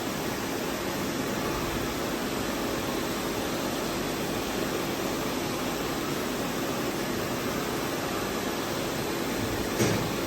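Steady machine hum and hiss, with a single short knock near the end.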